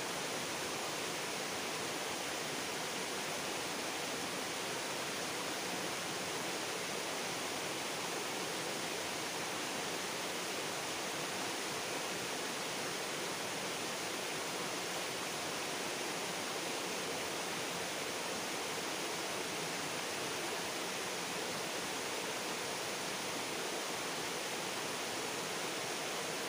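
Steady, even rushing of a stream's flowing water, unchanging throughout.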